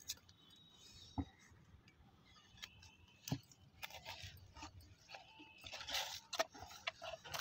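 A few faint sharp snips and clicks with light leaf rustling as a luffa (turai) gourd is cut from its vine.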